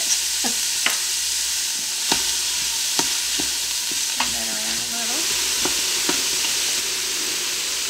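Chopped onion sizzling in hot oil in an Instant Pot's stainless inner pot on the sauté setting, stirred with a wooden spoon that knocks against the pot every half second to second.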